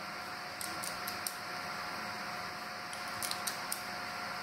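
Light metallic clicking from an Umarex Colt SAA CO2 BB revolver being reloaded by hand, as its cylinder is turned and cartridges are worked at the loading gate. The clicks come in two short runs, about a second in and about three seconds in, over a steady background hum.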